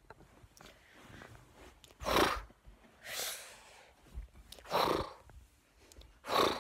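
Four short breathy huffs of air from a person, each about half a second long and spaced a second or so apart.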